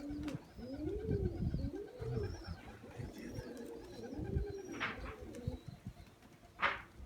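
Domestic pigeons cooing: a series of low coos, each rising and falling in pitch, with two brief sharp noises in the second half.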